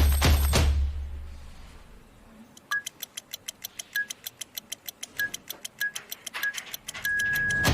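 Short electronic keypad beeps, five at uneven spacing like keys pressed by hand, then one longer beep near the end, typical of a password being entered and accepted on the intercom's unlock keypad. Under them is a soft, even ticking beat of background music, which is louder with deep bass in the first second and then fades.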